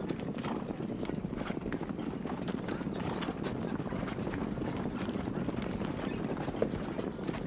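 A group of horses galloping together: a dense, continuous drumming of many hooves on the ground.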